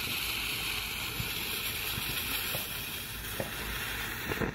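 Lit fuse of a 'Bad Dog' novelty firework hissing steadily, with a few faint crackles, until the hiss drops away near the end.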